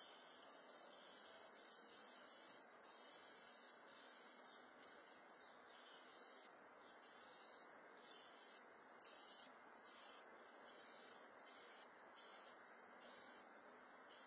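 Faint, high-pitched insect calls pulsing in a steady rhythm, about one and a half to two pulses a second, over a low steady hiss.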